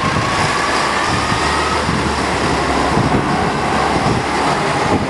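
Open-top double-decker bus driving along, heard from the open upper deck: steady engine and road noise mixed with wind on the microphone. A faint whine rises in pitch over the first couple of seconds.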